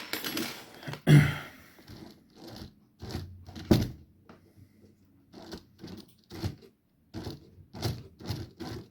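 Small parts of a 1/14 scale RC car being handled and its motor mount screws given a final tighten: a string of short, separate clicks and knocks, one or two a second, the loudest about a second in.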